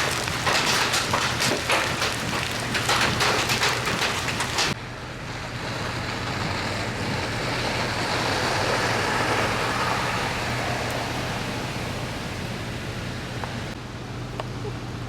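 Hail and rain pelting down in a dense clatter of sharp impacts, which cuts off abruptly about five seconds in. It gives way to a steadier hiss of rain that swells and then fades over several seconds, over a constant low hum.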